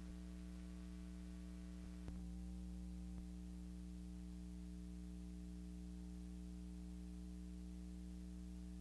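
Steady electrical mains hum with faint hiss, the film's silent soundtrack. Two faint clicks sound about two and three seconds in, with the hum a little louder between them.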